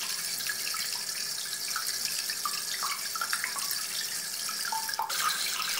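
Steady hiss, brightest in the treble, with faint short chirps scattered through it and a sharp click about five seconds in.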